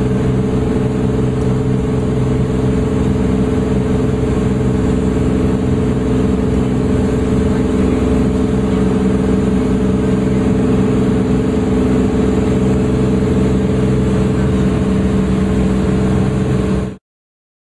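Cessna 400 Corvallis's turbocharged six-cylinder Continental TSIO-550 engine and propeller running steadily in flight, heard inside the cockpit. The sound cuts off suddenly near the end.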